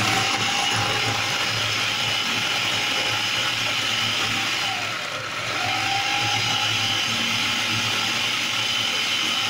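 Electric food processor running at speed, its blades chopping onions. About halfway through the motor briefly slows and picks back up, and it stops abruptly at the end.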